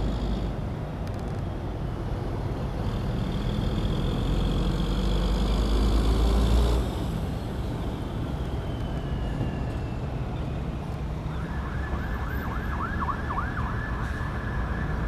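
Low rumble of heavy vehicle engines and traffic, loudest in the first half and dropping off suddenly about seven seconds in. From about eleven seconds in an emergency vehicle siren sounds, a steady wail broken by a run of quick up-and-down swoops.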